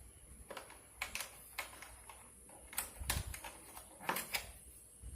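Light plastic clicks and taps as the interchangeable coloured plastic clips of a cordless drill are handled and swapped: about eight sharp, short clicks at uneven intervals, several in quick pairs.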